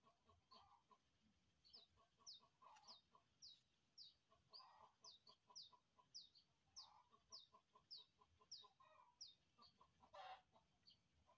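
Faint chickens clucking in quick runs of short pulses, over a string of high, falling chirps about two a second. A brief rustling noise near the end.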